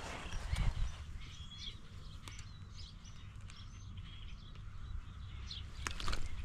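Small birds chirping now and then over a steady low rumble, with a few sharp clicks.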